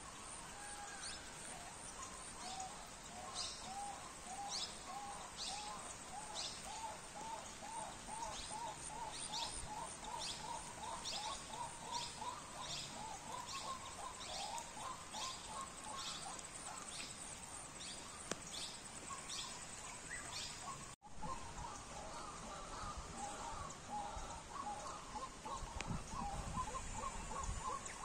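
Steady rain falling on flooded fields and open water. Over it, an animal calls in a fast series of short repeated notes, about three a second, through the first half and again near the end. The sound cuts out for an instant about two-thirds of the way through.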